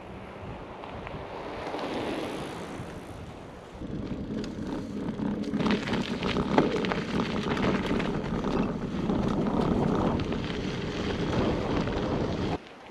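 Hyper Explorer mountain bike on a trail: quieter at first, then from about four seconds in its tyres rolling loudly over a sandy dirt trail with clattering from the bike and wind noise on the microphone. The sound cuts off suddenly near the end.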